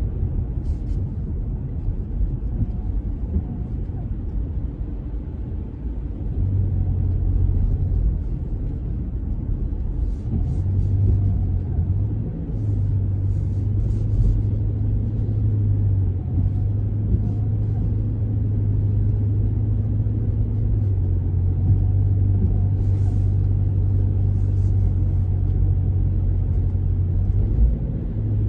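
A car driving on a wet road, heard from inside the cabin: a steady low drone of engine and tyres, with a low hum that drops out briefly a few times.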